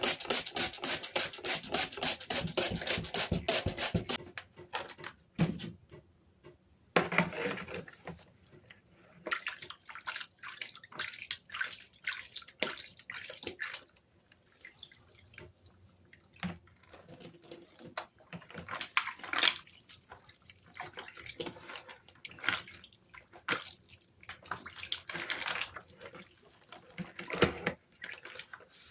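Rapid brisk scrubbing strokes on a Dell keyboard for about the first four seconds. After that comes irregular splashing, sloshing and dripping of water as the parts are washed.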